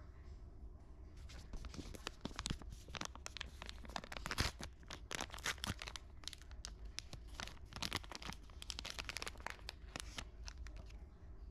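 Small kraft-paper earplug sachet being torn open and crinkled in the hands: dense paper crackling and rustling that starts about a second in and dies away near the end, loudest around the middle.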